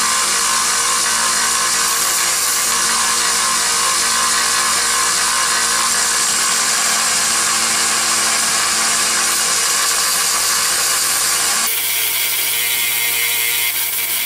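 Small 1x30-inch belt grinder running with a file-steel straight-razor blade pressed against its abrasive belt, a loud steady grinding hiss as it cleans the rough forged surface. The tone shifts near the end, where the low hum changes.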